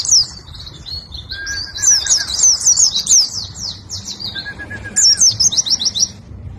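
Pleci (white-eye, Zosterops) singing its rapid 'ngentrok' song: fast runs of short, high, down-slurred twittering notes in bursts, softer for about the first second and a half and pausing briefly near the end.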